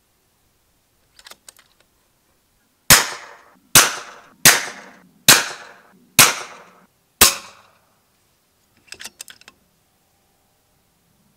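Six shots from a .25 calibre FX Panthera PCP air rifle at FAC power, each a sharp crack with a short fading tail, fired in quick succession under a second apart. A few faint clicks come before and after the string.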